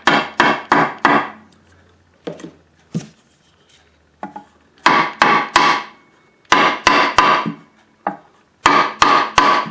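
Small plastic-faced hammer knocking on a block of ebony laid over a ukulele fret, driving the thin fret wire down into its fretboard slot, with a few lighter taps on the wire itself. The knocks come in quick groups of three or four, with short pauses between.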